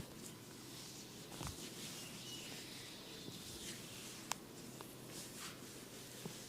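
Faint rustling and scratching of hands and a comb working over hair and scalp in a head massage, with a few light clicks and a soft thump.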